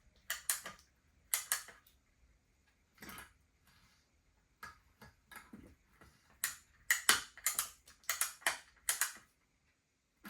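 A string of sharp clicks as the tension on a spring balancer is wound up, spaced irregularly at first and coming faster from about six seconds in.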